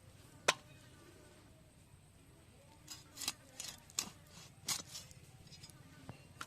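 A blade cutting through a whole fish, giving short, sharp crunching cuts at an irregular pace: one loud cut about half a second in, then a run of cuts between about three and five seconds.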